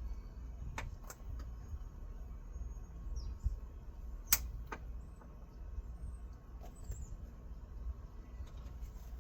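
A few sharp clicks and light taps of hand tools working a wire connection, over a low steady hum. Two clicks come about a second in, and the loudest comes about four seconds in.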